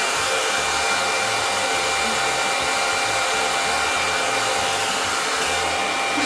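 Handheld hair dryer running steadily: a constant rush of blown air with a faint steady whine from the motor.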